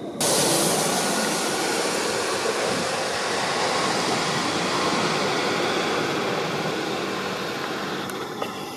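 Twin-engine business jet coming in to land: a steady rush of jet engine noise that starts suddenly and slowly fades.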